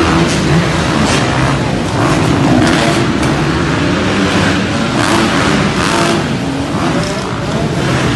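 Several motocross dirt bikes running on an indoor arenacross track, their engines rising and falling in pitch as the riders open and shut the throttle.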